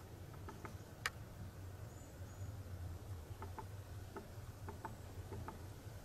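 Quiet summer forest ambience over a low steady rumble: one sharp click about a second in, a scatter of faint short ticks later on, and a couple of faint high chirps.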